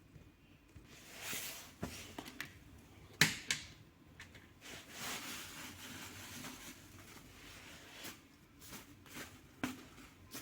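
Hands handling objects: rustling with scattered sharp clicks and knocks, the loudest click about three seconds in.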